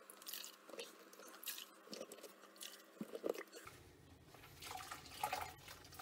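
Sponge soaking up standing water from the sump of a dishwasher that won't drain: faint, scattered wet dabs and drips.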